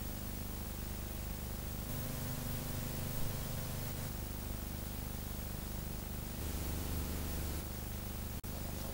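Steady hiss and low hum from the worn soundtrack of an old black-and-white film print, with no clear dialogue or music. The noise changes character slightly at each cut and drops out briefly near the end.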